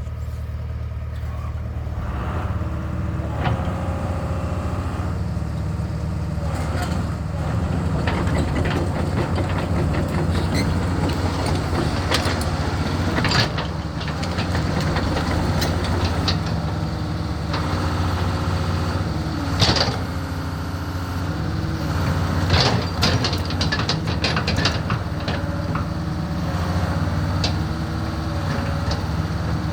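The 108 HP diesel engine of a 1997 Daewoo Solar 130LC-V excavator running steadily, its note shifting up and down in places, with a few sharp knocks, the clearest about 13, 20 and 23 seconds in.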